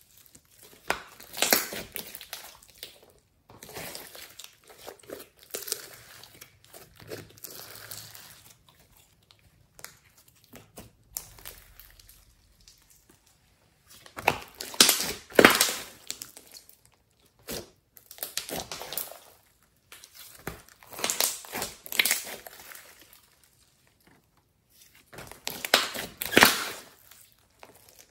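Glossy slime being stretched, folded and squished by hand, making sticky squishing noises in repeated bouts of a second or two with short quiet gaps between them.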